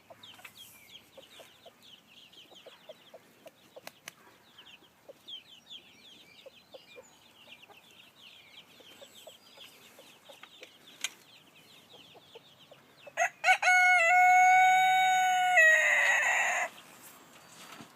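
Faint, rapid high peeping runs through most of the clip, then a rooster crows once, loudly, for about three seconds, starting with a few short notes and ending abruptly about three seconds from the end.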